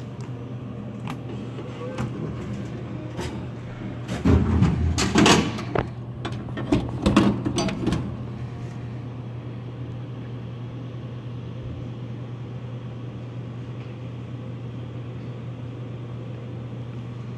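Bottle drink vending machine dispensing a plastic bottle of soda: about four seconds in, a burst of loud knocks and clatter lasting about four seconds as the bottle drops into the delivery bin and is pulled out by hand, over the machine's steady low hum.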